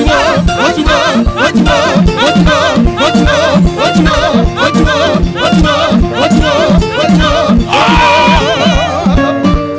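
Lively band music: a fast guitar groove over a steady, repeating bass line.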